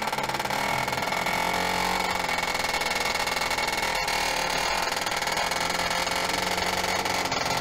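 MZ two-stroke racing motorcycle engine running steadily at an even level.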